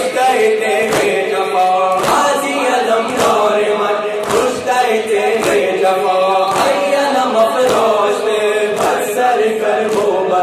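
Male voices chant an Urdu noha (Shia lament) into microphones, a crowd of men singing along. Under the chant, many hands strike chests in unison in matam, a slap about once a second that keeps the beat.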